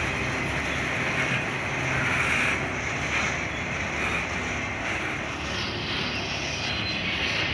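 Freight train rolling past: a steady, continuous noise of wheels on rail, with a strong hiss in it.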